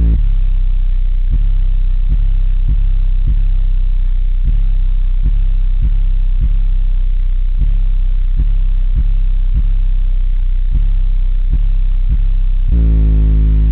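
Car audio subwoofers playing the bass-only break of a rap track, heard inside the car: a deep, steady bass note with a beat hitting about every two-thirds of a second. The full music with its higher parts comes back near the end.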